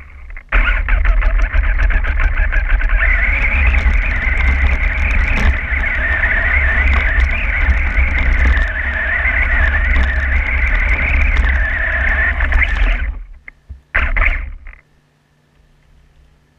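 Onboard sound of a Losi XXX-SCT radio-controlled short course truck driving over snow and slush. A motor and gear whine wavers up and down with the throttle over a heavy low rumble and many small knocks from the tyres and chassis. Near the end it stops, with one short burst after.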